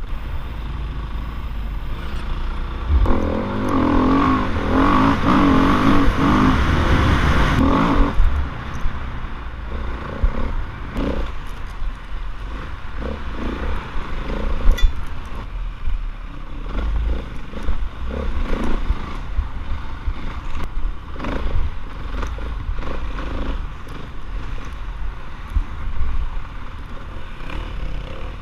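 Dirt bike engine running and revving as the bike rides over a rough, rutted dirt track, heard from a helmet-mounted camera, with clattering and knocks from the ride. The engine is loudest and highest in pitch for about five seconds from about three seconds in.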